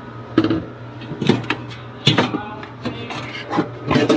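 Irregular knocks, clatters and scrapes of thin sheet-aluminum panels and parts being handled and pried inside a refrigerated prep-table cabinet, over a steady low hum.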